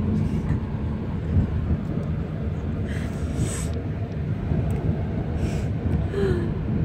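Steady low road and engine rumble of a moving car, heard from inside the cabin. A couple of short hiss-like sounds come about three and five and a half seconds in.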